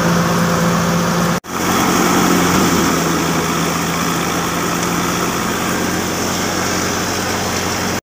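Tractor-driven wheat thresher running steadily: an even engine hum under a dense rushing noise, broken by a momentary dropout about a second and a half in.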